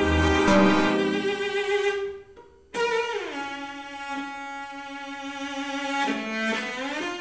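Cello, bowed, playing sustained notes. The sound breaks off briefly about two seconds in, then comes back abruptly with a note that slides down in pitch and holds. Near the end it slides back up.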